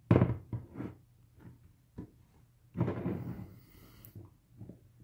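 Fingers rubbing and pressing a vinyl decal down onto the hard plastic shell of a football helmet: scuffing and squeaking handling noise, with a sharp knock at the start and a longer rub about three seconds in.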